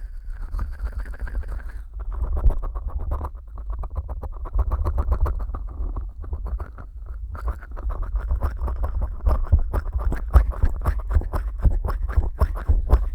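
Fingers slick with petroleum jelly rubbing and pressing on the silicone ears of a 3Dio binaural microphone, heard very close. The sound is a dense run of wet crackling clicks over a low rumble, easing off briefly a few times.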